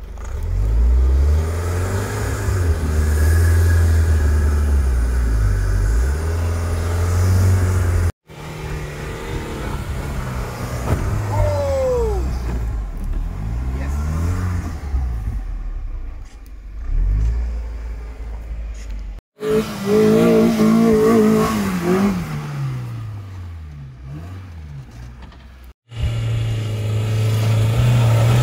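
Off-road vehicle engines revving up and easing off under load in several short takes, each cut off abruptly. The first is a 2020 Land Rover Defender climbing a rutted sandy track with its tyres digging into the sand. Near the end an Isuzu D-Max V-Cross takes the climb, and the loudest, highest revving comes about two-thirds of the way through.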